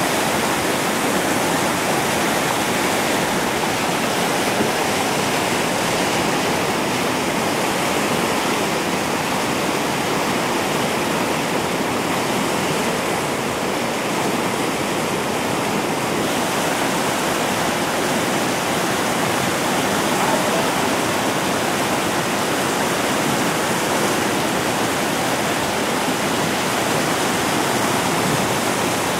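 Whitewater river rapids rushing steadily, a constant noise of churning water.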